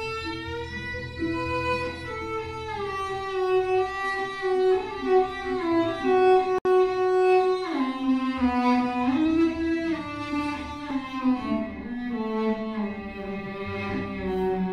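Solo cello, bowed, playing a slow melody of long held notes that glide between pitches, over a low sustained part.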